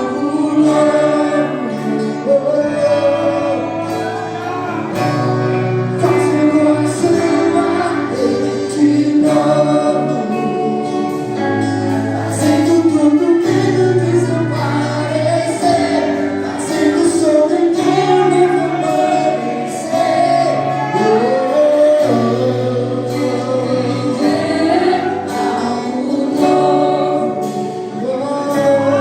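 Christian worship song: a group of voices singing over a band, with a held bass line and a steady beat.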